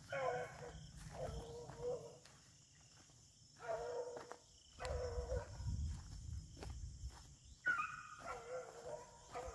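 Several beagles baying in drawn-out bouts of about a second each, sometimes two voices at once: a pack giving tongue as it runs a rabbit's scent.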